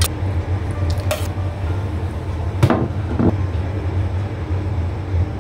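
A metal spoon clinking and scraping against ceramic plates a few times while thick porridge is spooned out, over a steady low hum.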